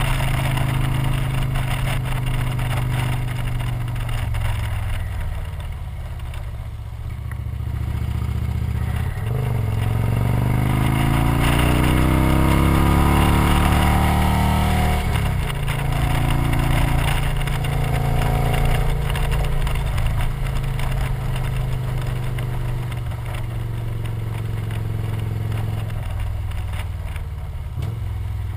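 Victory motorcycle's V-twin engine running under way, with wind noise. Midway the engine pitch rises steadily for several seconds as it accelerates, then drops suddenly and settles back to a steady cruise.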